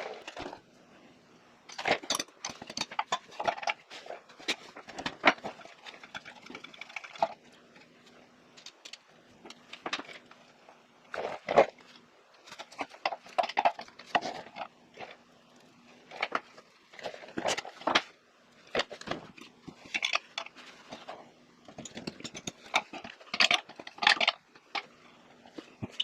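Irregular clicks, clinks and scrapes of hand tools and metal fittings being worked while an air compressor valve is taken off. A faint steady hum runs underneath.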